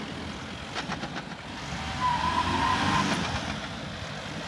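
Force Gurkha's diesel engine pulling under load, in four-low with its differential locks engaged, as the 4x4 climbs a soft sand slope with its tyres churning sand. A few sharp knocks come about a second in, and the engine gets louder a couple of seconds in.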